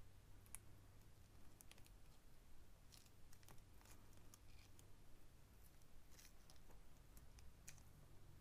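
Near silence with faint scattered clicks and short rustles of handwork: tape being wound around the wire stems of beaded rose petals.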